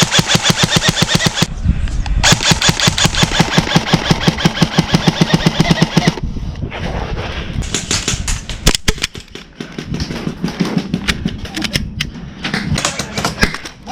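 Airsoft guns firing on full auto. A short burst opens, a long burst of about four seconds stops about six seconds in, and scattered shorter bursts and single shots follow.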